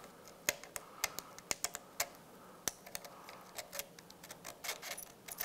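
Thin steel valve shims of a dirt-bike rear shock's compression stack clicking lightly against each other and the shaft as they are slid on one at a time by hand: a scattered run of short, sharp metallic clicks, a few a second.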